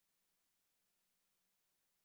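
Near silence: the footage carries no audible sound, only a very faint steady hum far below hearing.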